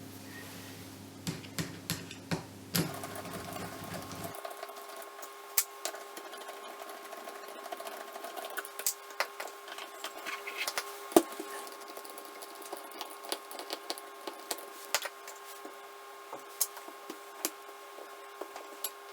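Scattered small clicks and taps of hard parts being handled during hands-on motorcycle carburettor repair, over a steady faint hum.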